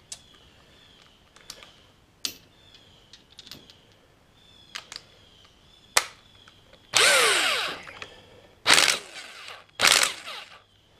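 Impact wrench run in three short bursts from about seven seconds in, the first and longest winding down with a falling whine, working loose the clutch nut of a 50cc scooter. Before it come scattered light clicks and taps of tools and parts being handled.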